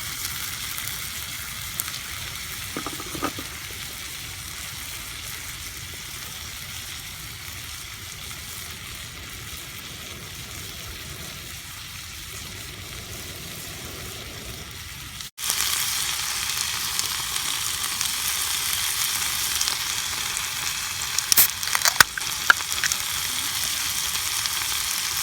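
Pork offal frying in a small cast-iron skillet, a steady sizzle. It cuts out for an instant about halfway and comes back louder, with a few sharp pops a few seconds later.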